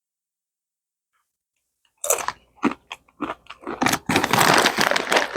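Near silence, then about two seconds in, a person starts biting and chewing crisp potato chips: loud, irregular crunches that grow dense and continuous near the end.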